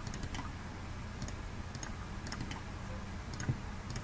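Computer mouse clicking at an irregular pace, a series of short sharp clicks, over a low steady electrical hum.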